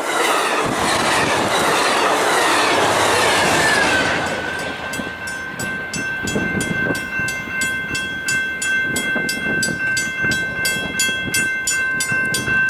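Amtrak California bilevel passenger cars rushing past on the rails, their noise sweeping down in pitch and fading over the first four seconds. Then a grade-crossing bell rings steadily at about three strikes a second, over faint clatter of wheels on rail joints.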